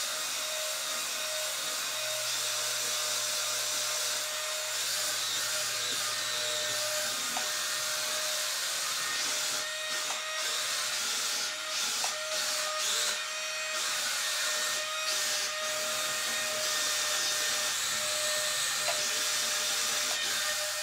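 The SpaceGate Wall Climber RC car's built-in suction fan running steadily: a high, hissing whir with a faint steady hum under it. It is quite a bit of noise, the fan pulling air out from under the car to hold it onto the wall and ceiling.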